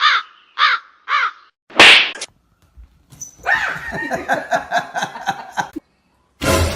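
An animal calling: three short calls about half a second apart, a sudden loud smack or whoosh, then a couple of seconds of rapid, overlapping calls.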